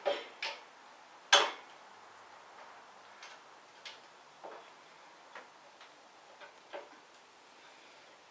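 Irregular hand-work clicks and knocks as a bracket and its fasteners are handled and fitted under a motorcycle's rear fender. Three sharper knocks come in the first second and a half, the loudest about a second in, then lighter scattered ticks.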